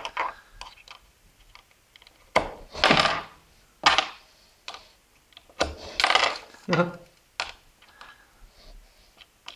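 Small plastic Kinder Surprise toy parts being handled, clicked together and knocked on a wooden tabletop. Light clicks and knocks are broken by a few louder, longer handling noises.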